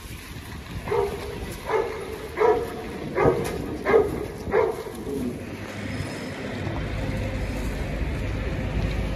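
A large dog barking six times in a steady rhythm, about one bark every 0.7 seconds, then stopping; a steady low rumble sets in near the end.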